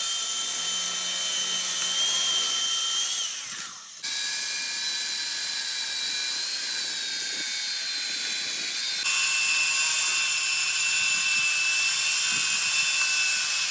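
Electric concrete cutting machine running under load with a steady high-pitched whine. About three and a half seconds in it dies away briefly, then starts again sharply at four seconds. Its pitch steps to a different tone at about nine seconds.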